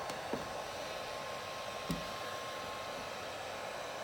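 Heat gun running steadily with an even blowing hiss and a faint steady whine, with two light taps about a second and a half apart.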